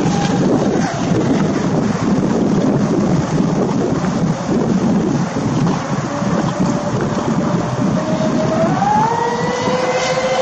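Radio-controlled racing speedboats running flat out, their motors a high whine that rises in pitch late on, with two whines heard together near the end. A constant rushing wind noise on the microphone dominates throughout.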